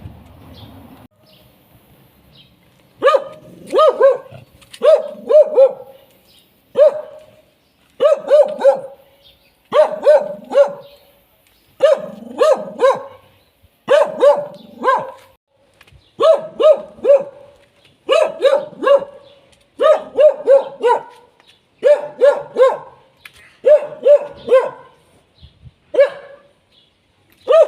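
A dog barking, with high, short yaps in quick groups of two or three about once a second, starting about three seconds in.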